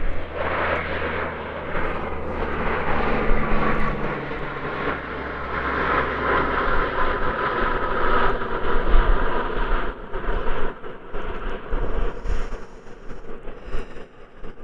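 Low-flying airplane passing overhead: a steady engine rush that builds to its loudest about halfway through, then fades away.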